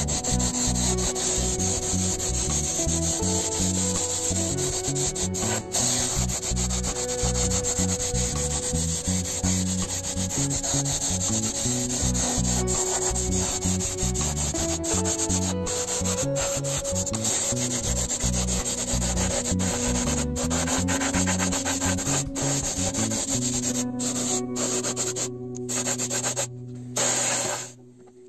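Sanding on the metal of a vintage Nylint toy crane: steady, scratchy rubbing strokes that break off briefly a few times near the end.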